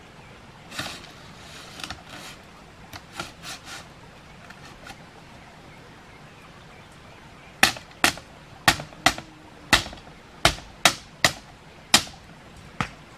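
Light rustling and clatter of bamboo strips being handled, then a run of about ten sharp knocks, two or three a second, as bamboo slats are struck into place on a bamboo fence frame.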